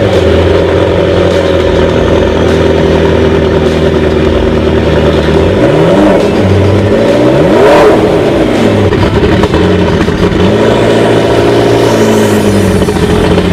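McLaren MP4-12C Spider's twin-turbo V8 idling just after start-up. About six seconds in it is revved once, rising to a peak near eight seconds and falling back to a steady idle.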